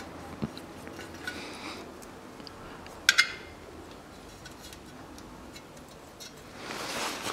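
Small clicks and taps as a timing belt cover is seated against a Toyota 3S-FE engine, with a sharp double click about three seconds in and a soft rustle near the end.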